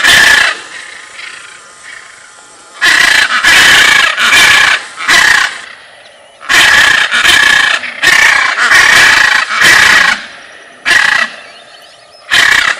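Macaw screeching: a long series of loud, harsh squawks, coming in bunches with short gaps between them.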